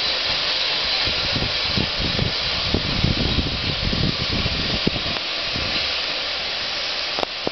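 SECR C class 0-6-0 steam locomotive No. 592 hissing steadily as it draws away along the line, with irregular low thuds from about a second in until about five seconds.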